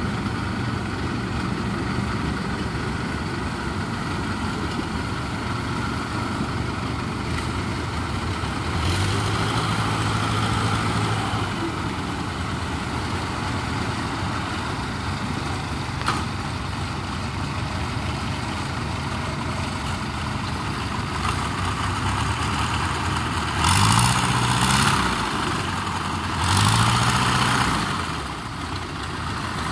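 An engine running steadily at idle, revved up for a couple of seconds about a third of the way in and then twice more near the end, its pitch rising each time.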